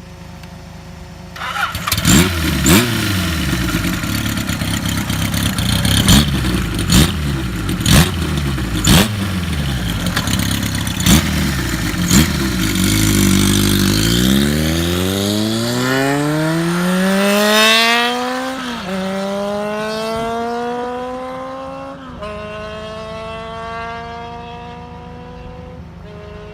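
Kawasaki Z750FX's air-cooled inline-four running through a four-into-one collector and a Nakazawa lotus-root baffle silencer, which gives the exhaust a singing note. After a brief idle it is revved with a string of sharp throttle blips. Then it pulls away, the pitch climbing steadily and dropping back at three upshifts as it grows fainter.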